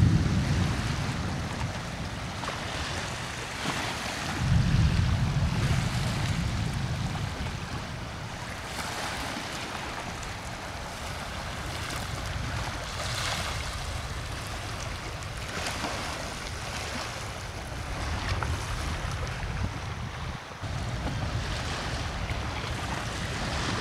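Storm wind buffeting the microphone over small waves breaking on the shore. Deep rumbles fade over the first couple of seconds, come back about four to six seconds in, and swell again at the end.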